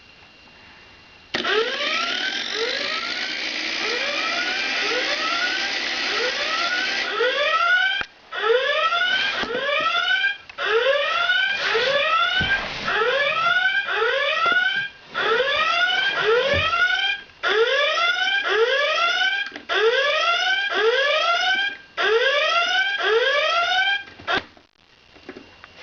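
Flying alarm clock's electronic alarm going off, a loud rising chirp repeated about twice a second. For the first five or six seconds a steady whirring hiss runs under it. The chirping breaks off briefly several times and stops near the end.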